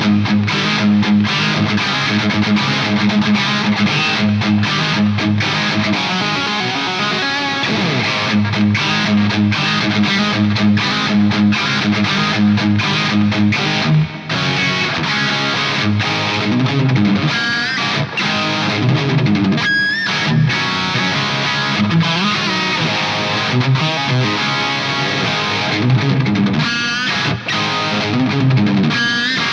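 Distorted electric guitar through an Axe-FX III preset modelling an ADA MP1 preamp, with presence and depth raised: an 80s rock lead tone. Fast continuous riffing and lead lines, with several rising pitch bends in the second half and a brief break about 14 seconds in.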